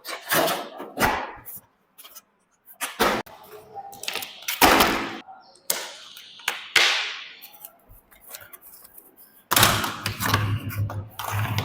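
Toy RC car packaging being handled and opened: plastic and cardboard rustling and scraping, broken up by knocks and thuds. A low steady hum starts near the end.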